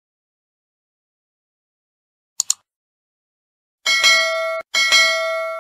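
Notification-bell sound effect for a subscribe animation: a quick double mouse click, then a bell chime struck twice and ringing out.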